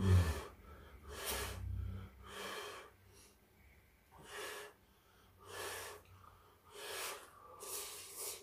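Person slurping noodles with chopsticks, about six separate slurps of roughly half a second each.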